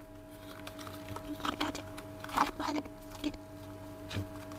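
Handling of the fitness band's cardboard box and paper inserts as its contents are taken out: a few short rustles and soft knocks, over a faint steady hum.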